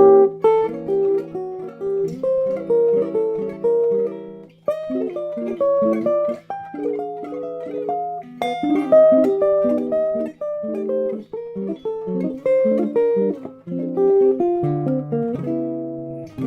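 Solo jazz guitar playing a continuous run of chord voicings, the upper notes stepping up to suspensions and back down to the chord tones over a held bass note. The bass moves lower near the end.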